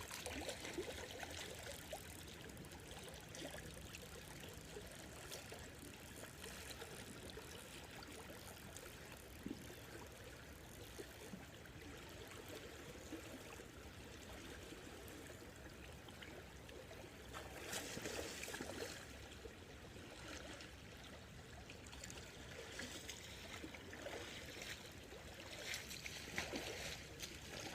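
Creek water running in a faint, steady wash, with a short louder stretch of noise about two-thirds of the way through.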